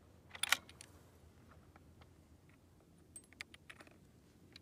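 Sharp clicks from handling a bolt-action rifle and its cartridges at the shooting bench: a pair of loud clicks about half a second in, then a quick run of lighter clicks about three seconds in.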